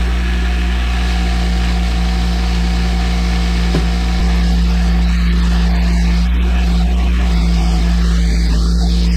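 A motor-driven machine running steadily with a deep, even hum.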